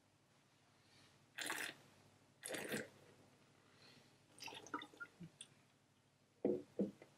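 A wine taster slurping air through a mouthful of red wine twice, then spitting it into a spittoon bucket in a few small wet spurts. Near the end the bucket is set down on the table with two soft knocks.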